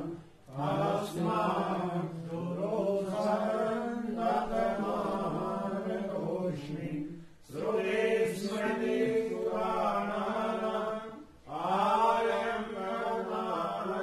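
Hindu mantras chanted during a puja, recited on a nearly level pitch in long phrases broken by short pauses for breath.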